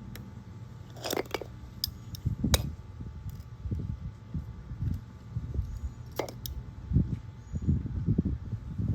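Irregular light clicks and taps with soft low knocks: pliers and small parts being handled while a rubber spark plug boot is worked back onto a chainsaw's ignition lead.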